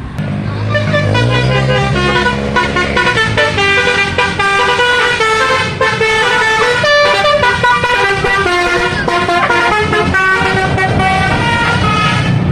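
A tour bus's 'telolet' musical air horn plays a quick tune of stepped notes over the low running of the bus engine.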